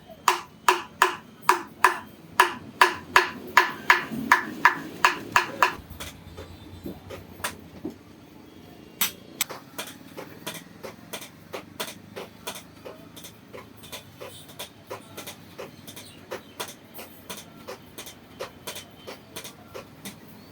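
Blacksmith's hammer beating iron on an anvil while forging a boti blade. For the first six seconds come loud, evenly paced ringing blows, about two and a half a second; then lighter, quieter taps follow at a quicker pace.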